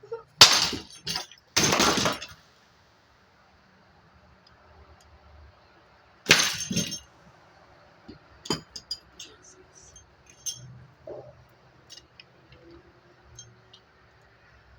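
A ceiling fan being smashed, with glass breaking: three loud crashes in the first two seconds and another about six seconds in, followed by scattered small clinks of pieces.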